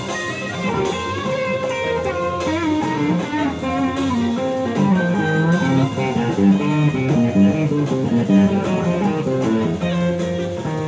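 Stratocaster-style electric guitar played through an amplifier, a busy line of quickly changing single notes and short riffs.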